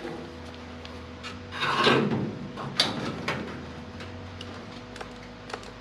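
Handling noises: a scraping rustle about two seconds in and a few light clicks and knocks, over a faint steady hum.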